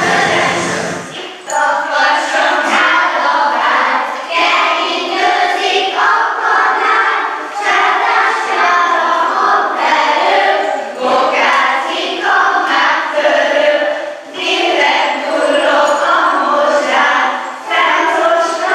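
Dance music cuts off about a second in. Then a group of young children sing a song together, phrase by phrase, with short pauses between the lines.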